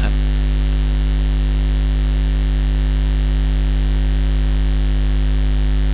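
Loud, steady electrical mains hum, a deep buzz with higher overtones, over constant hiss from the recording line.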